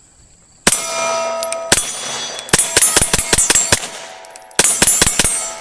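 A string of 9mm pistol shots from an HK P30L fitted with an HK Parts muzzle brake: two single shots about a second apart, then quick runs of several shots. A metallic ringing hangs on after the shots.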